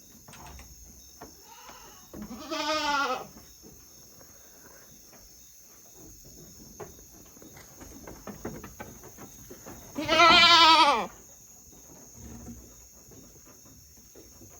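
Goats bleating: two loud, quavering bleats, one about two seconds in and a longer one about ten seconds in, with fainter calls between.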